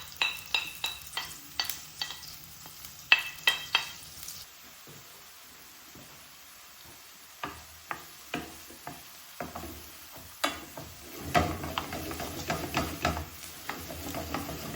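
Chopped onions and garlic frying in butter and olive oil in a sauté pan, with a utensil stirring them and knocking against the pan. There is a quieter lull in the middle, and the sizzle grows louder for the last few seconds.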